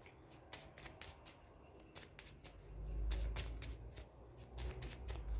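A deck of playing cards being shuffled by hand: a run of quick, sharp card snaps, with a low rumble of handling about three seconds in.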